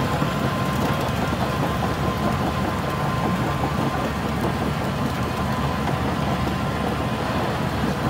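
Shantui crawler bulldozer's diesel engine running steadily, with a faint steady whine alongside it.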